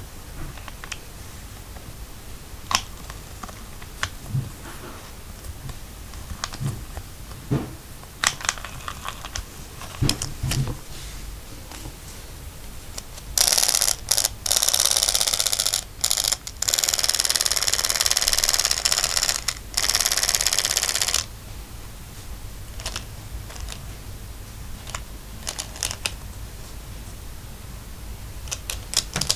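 A motorized toy mouse whirring for about eight seconds, starting about a third of the way in and breaking off twice briefly. Scattered light clicks and taps come before and after it.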